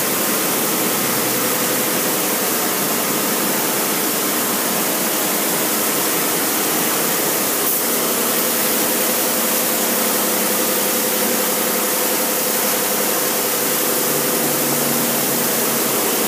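Mark VII automatic car wash running: a steady hiss of water spraying over the vehicle, with a steady machine hum beneath it.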